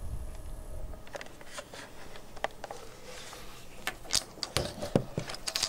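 Desk handling noise: a low rumbling bump in the first second, then scattered light clicks and taps of small objects and paper being moved about, growing denser and louder near the end.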